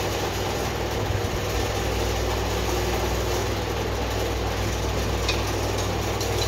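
An engine running steadily at constant speed, a low even hum, with a few faint clicks about five and six seconds in.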